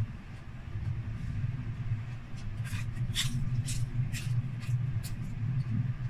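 Crunchy chicharon bulaklak (deep-fried pork mesentery) being chewed with the mouth close to the microphone: a run of about seven crisp crunches from a couple of seconds in to about five seconds in. A steady low hum runs underneath.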